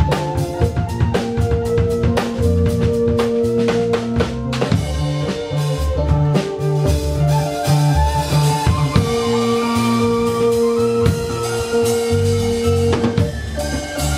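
Live instrumental jam: a Pearl drum kit keeps a steady groove with snare and bass drum, under an electric bass line and keyboard. Long held keyboard notes sound twice, early on for a few seconds and again from about nine seconds in.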